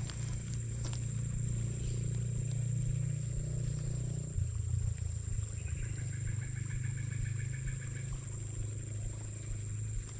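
Outdoor ambience: a steady high-pitched drone over a continuous low rumble, with a rapid, evenly pulsed animal call lasting about two seconds a little past the middle.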